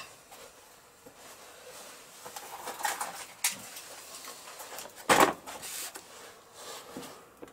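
A cardboard box set down on a workbench, a short knock-and-scrape about five seconds in, among quieter handling scuffs and clicks.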